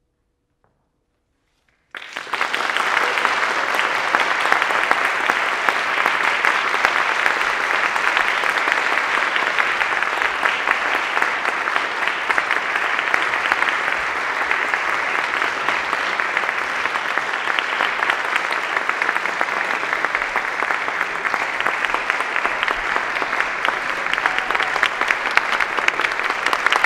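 Near silence for about two seconds, then an audience suddenly breaks into applause that goes on steadily.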